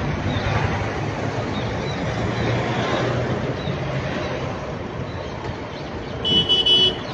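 Road traffic noise: vehicle engines running with a steady low hum. Near the end a vehicle horn sounds briefly.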